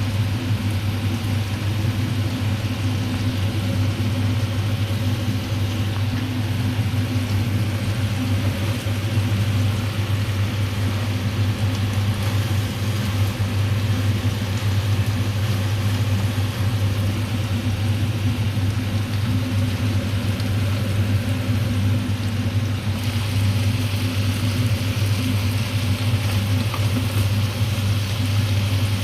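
A steady low machine hum with a constant hiss over it; the hiss gets a little louder about 23 seconds in.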